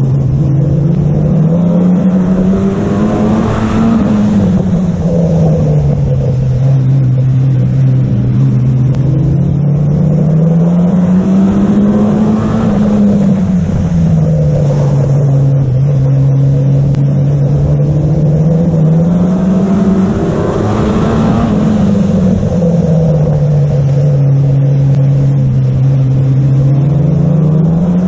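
Race car engine heard from inside the car as it laps a short oval. The revs rise on each straight and fall away through each bend, about every eight or nine seconds, three times over.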